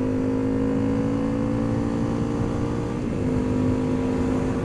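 Honda CRF250L single-cylinder four-stroke engine running at steady speed under way, its pitch easing slowly down with a brief dip about three seconds in, over low wind rumble.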